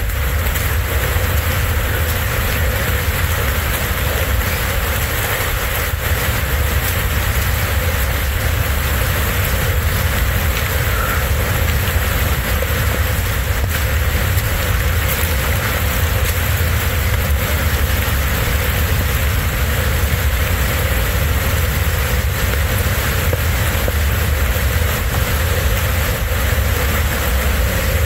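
Loud, steady rush of fast-flowing water in heavy monsoon flow, with a low rumble underneath.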